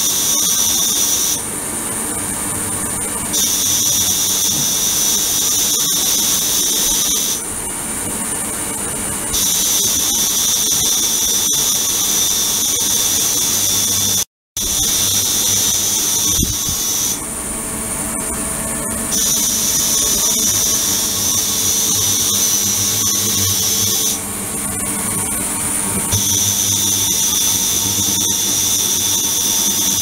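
Ultrasonic cleaning tank running: a steady hiss with a high-pitched whine that cuts out for about two seconds every few seconds and comes back. The sound breaks off for an instant about halfway through.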